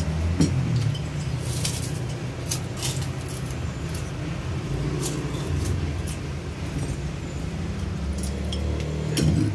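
Spoons clicking and clinking against plates and glasses while people eat, over a steady low rumble.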